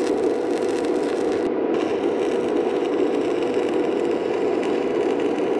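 Stick-welding arc crackling and sizzling as a weld is run on the foot of a steel column, with a short break after about a second and a half before the arc is struck again.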